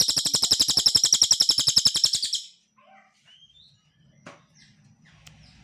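Cililin songbird singing a loud, fast, even trill of rapid high-pitched pulses that stops abruptly about two and a half seconds in, followed by faint, scattered short chirps.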